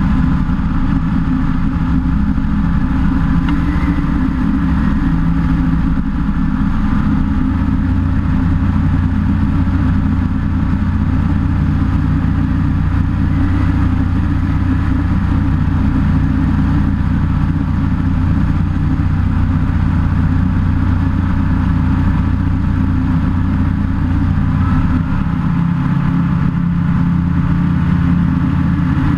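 SeaRey amphibian light-sport aircraft in cruise flight: a steady engine and propeller drone heard from outside the cabin. The engine note shifts slightly about 25 seconds in, a small change in power.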